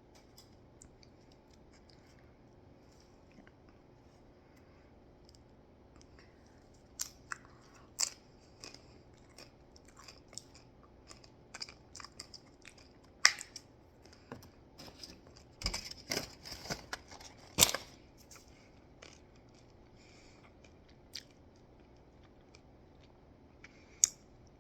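Crunchy nacho tortilla chips being bitten and chewed close to the microphone. The first several seconds are quiet, then come irregular sharp crunches, thickest about two-thirds of the way through.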